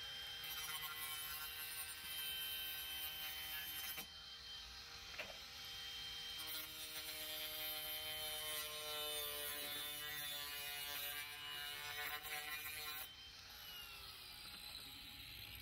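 Battery-powered angle grinder running, its cutting disc slicing through a white vinyl siding corner post. The motor's whine shifts in pitch as the disc bites, dips briefly about four seconds in, and winds down with a falling whine near the end.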